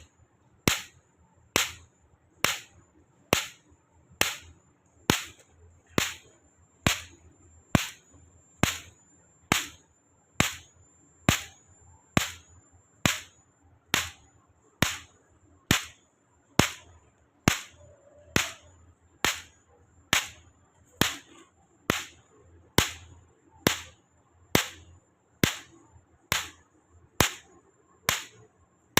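Solar electric fence energizer (jhatka machine) firing its pulses: a sharp snap a little more than once a second, evenly spaced, each followed by a brief high-pitched ring.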